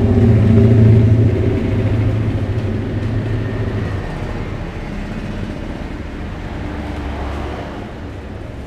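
A motor vehicle's engine running close by, a steady low hum that slowly fades away over the seconds.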